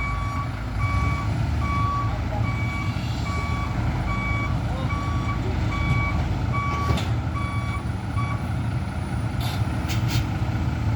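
Heavy vehicle's reversing alarm beeping steadily about twice a second over a low engine rumble; the beeping stops about eight seconds in while the engine keeps running, with a few sharp clicks near the end.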